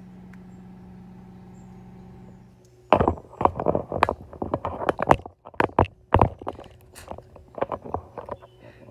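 A steady low hum, then about three seconds in a rapid run of loud knocks and clatters lasting some five seconds.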